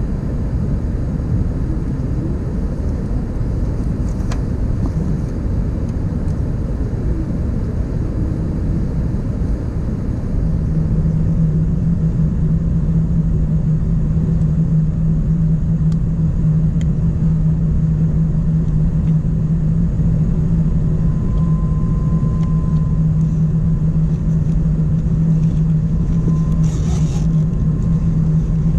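Airbus A380 cabin noise on approach: a steady rumble of the engines and the air rushing past the airframe, with the flaps out. About ten seconds in, a steady low hum sets in and the noise grows slightly louder.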